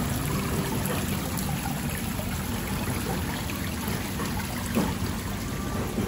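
Water running and splashing steadily as it overflows the edges of seafood display tanks, with a low steady hum beneath.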